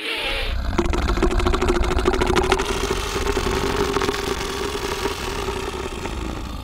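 Dinosaur sound effect: a long, low rumbling growl with a fast rattling pulse, opening with a brief hiss and slowly fading near the end.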